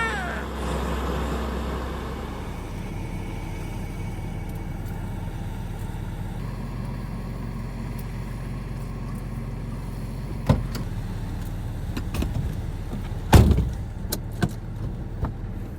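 A steady low engine rumble, with a sharp knock about ten seconds in and a louder thud a few seconds later, followed by a few light clicks.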